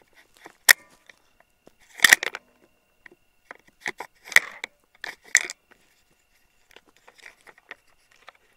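Irregular sharp clicks and crackles, with the loudest cluster about two seconds in and more around four and five seconds, over a faint steady high tone.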